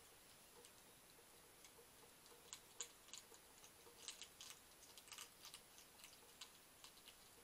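European hedgehog crunching dry kitten food: faint, irregular sharp clicks of chewing, sparse at first and busier from a couple of seconds in.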